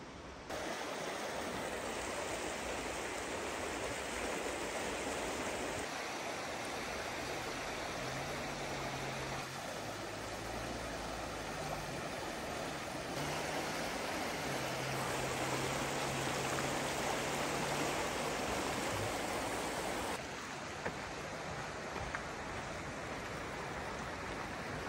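Rushing water of a creek and waterfall, a steady hiss that shifts abruptly in level every several seconds. A low steady hum sits beneath it for about ten seconds in the middle.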